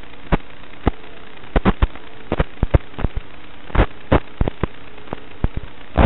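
Analog FPV video-link static: a steady hiss and faint hum broken by irregular crackling pops. The pops bunch up as the picture breaks into interference near the end.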